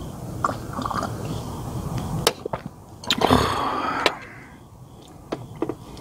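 Close-up eating sounds: chewing and biting on a leaf wrap of boneless pork trotters (jokbal ssam), with several sharp clicks. About three seconds in there is a louder noise lasting about a second.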